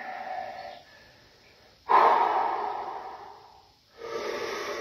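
A man breathing deeply and forcefully, with three long breaths. The loudest starts sharply about two seconds in and fades away, and another comes near the end. These are deep breaths taken on the bench before a set of bench presses.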